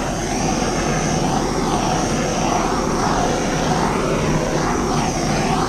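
Handheld torch flame burning with a steady rushing hiss, gently wavering as it is played over the surface of a freshly poured wet acrylic painting.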